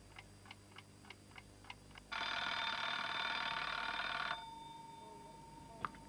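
Mechanical alarm clock ticking about three times a second, then its bell ringing for about two seconds before cutting off abruptly. A faint tone lingers after the ring, and there is a single click near the end.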